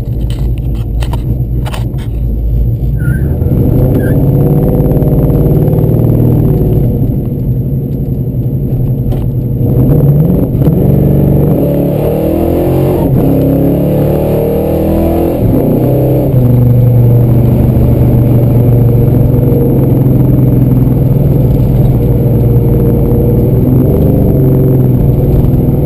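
V8 car engine heard from inside the car while driving. It climbs in pitch as it accelerates about ten seconds in, its revs rise and fall for several seconds, and it then settles into a steady, louder cruise. A few knocks sound near the start.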